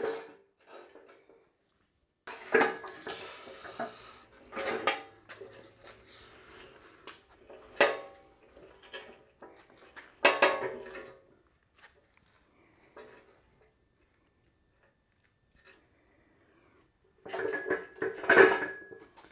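Steel uprights of a MaxJax portable two-post lift clanking and rattling as they are moved and seated on their floor mounts: sharp metal knocks every two or three seconds, then a quicker run of louder clanks near the end.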